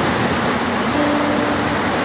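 Steady heavy rain, an even wash of noise, with a faint short tone about a second in.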